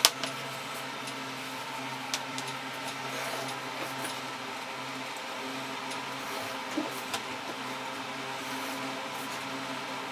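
Steady low electrical hum and hiss, with a few faint ticks and scrapes of a pencil and plastic ruler on paper as straight lines are ruled.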